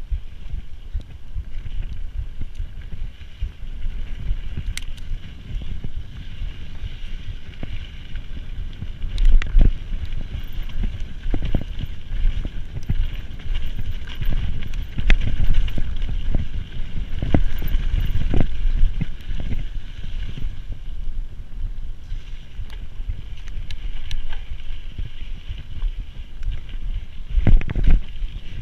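Mountain bike ridden on a dirt trail, heard from a GoPro: steady wind and riding rumble on the microphone with tyre noise, broken by sharp knocks and rattles as the bike hits bumps, hardest about nine seconds in, in the middle, and near the end.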